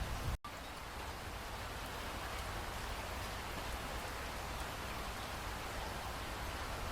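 Steady rain falling, an even hiss with a low rumble underneath. The sound cuts out completely for an instant about half a second in.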